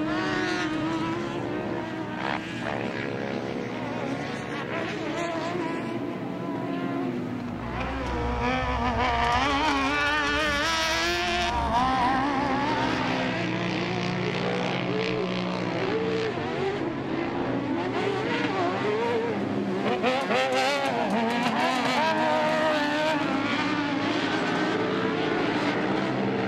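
Engines of racing UTVs (side-by-sides) revving up and down as they drive the dirt course, several overlapping engine notes rising and falling in pitch, with a deeper rumble swelling for a few seconds in the middle.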